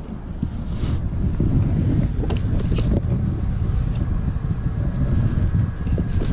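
Wind buffeting the camera's microphone, a loud uneven low rumble, with a few light clicks and taps from handling gear.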